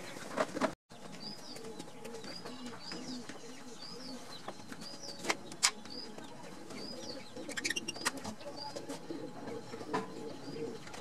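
Pigeons cooing, with a run of short high chirps about twice a second and a couple of sharp clicks near the middle.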